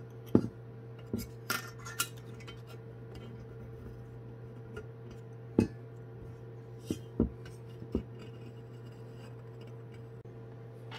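Sparse, irregular light clicks and taps of fingers and a small tool against the metal amplifier housing as old thermal pads are peeled off, over a steady low hum.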